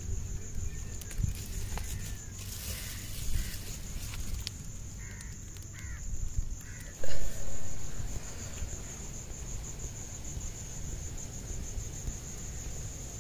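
Steady high insect trilling, typical of crickets, with a short loud animal call about seven seconds in and a few faint clicks.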